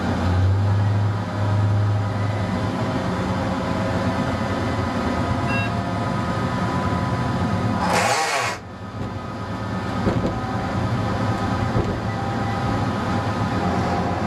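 ČD class 854 diesel railcar running, heard from the driver's cab: a steady diesel engine drone with wheel and rail noise, the engine's low hum strongest in the first few seconds. About eight seconds in comes a short, loud hiss, after which the running noise drops for a moment.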